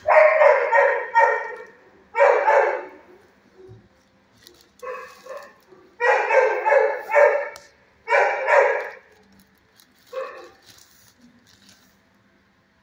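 Dog barking in quick runs of several barks, six runs with short pauses between them, the third and last ones shorter and fainter.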